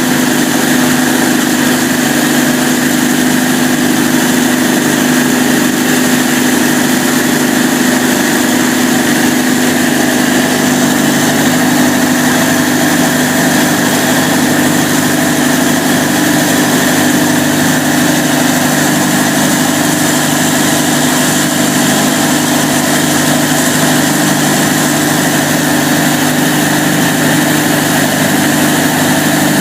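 Cummins KTA38-G4 generator set's V12 turbocharged diesel engine running at a constant speed, with a loud, steady drone and a high hiss that do not change.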